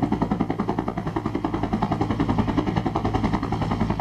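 Bell UH-1 Huey helicopter hovering close to the ground and settling to land, its two-blade main rotor beating in a fast, even whop about ten times a second over a steady low turbine hum.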